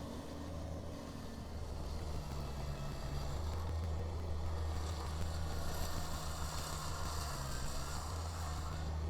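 Kubota BX compact tractor's three-cylinder diesel engine running steadily. A higher hiss swells from about five seconds in and eases off near the end.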